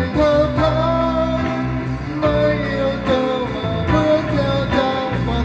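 Live music: an electric guitar with band accompaniment and a low bass line, playing a slow melody of long held notes that waver in pitch.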